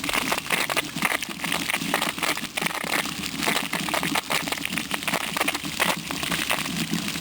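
Water gushing out of an open sprinkler riser with no head on it and splashing down onto the lawn and soil, a dense, uneven spatter. The line is being run open to flush dirt out before a new spray head goes on.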